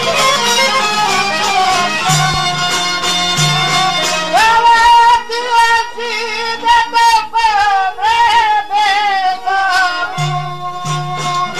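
Instrumental break in an Albanian folk song: a wavering, ornamented lead melody over regular percussion and a recurring low bass. The lead line comes in loudly about four seconds in.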